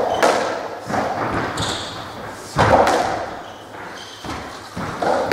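Racketball rally on a squash court: several echoing thuds of the ball hit by rackets and striking the walls, the loudest about two and a half seconds in, with a brief squeak of shoes on the wooden floor.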